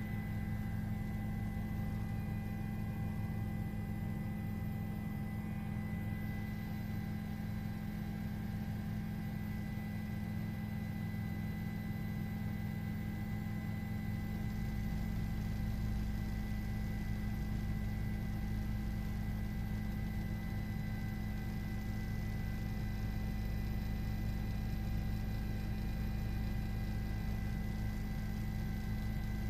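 Steady low hum with several faint steady tones above it; its deepest part grows louder about halfway through.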